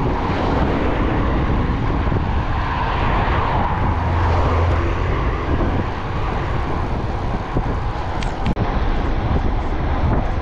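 Steady rush of wind on the microphone and road noise from a road bike riding at speed, its camera mounted on the handlebars.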